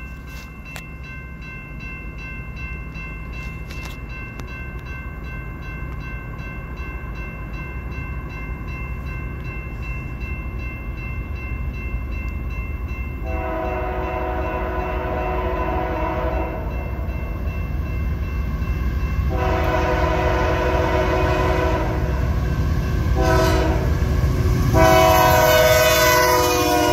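Approaching freight locomotive's multi-note air horn sounding the grade-crossing pattern, starting about halfway through: long, long, short, long, over the rumble of the train growing louder as it nears. Before the horn, a grade-crossing bell rings rapidly and steadily.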